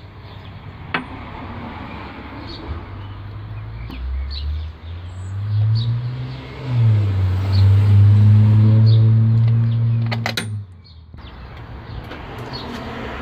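A vehicle engine runs with a low, steady hum. Its pitch rises a few seconds in, then it holds steady and cuts off suddenly about ten and a half seconds in.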